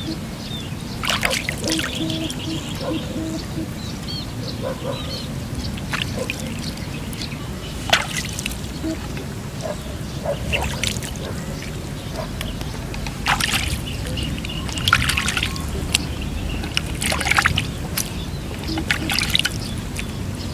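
Water trickling and splashing in irregular short bursts.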